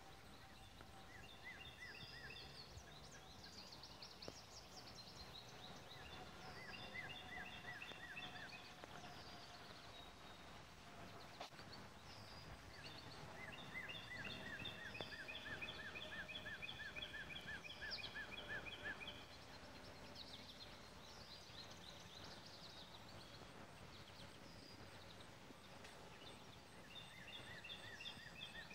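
Faint outdoor ambience with an animal's rapid trilling call in several bouts lasting one to about five seconds, mixed with short high chirps of birds. A faint steady drone runs underneath.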